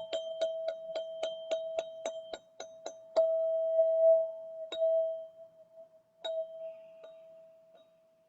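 Gold ZenTube, a tuned metal chime tube, struck with a mallet, ringing one steady pitch. It is tapped quickly, about four strikes a second, for the first three seconds. Then come a louder single strike and three more spaced strikes, and the ring fades near the end.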